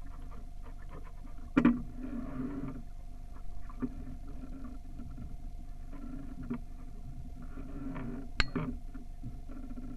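Water sloshing and gurgling against a small sailboat's hull over a steady low rumble, with a faint steady whine. Two sharp knocks, about a second and a half in and again about eight seconds in, are the loudest sounds.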